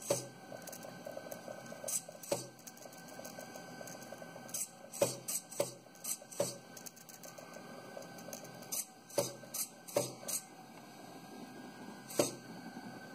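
Eggbot pen plotter at work. Its stepper motors hum and buzz as they turn the egg and swing the felt-tip pen across it, and a dozen or so sharp, irregularly spaced clicks come from the pen arm lifting and dropping.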